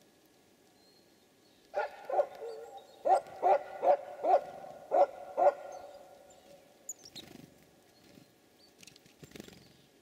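An animal calling: a run of about eight loud, pitched calls in quick succession, starting about two seconds in and ending a little past the halfway point.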